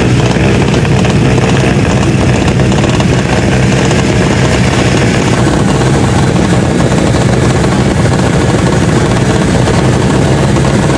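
Drag bike's engine held at high revs while staged at the start line, a loud steady drone that neither rises nor falls.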